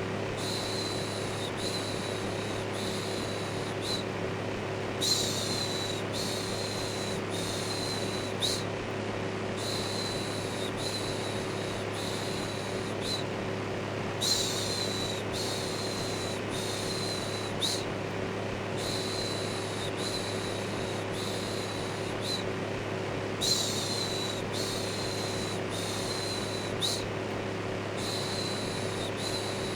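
Electric fan running with a steady low hum, under a rhythmic 'shhh' shushing of about one shush a second, the kind of looped white noise used to settle a baby to sleep.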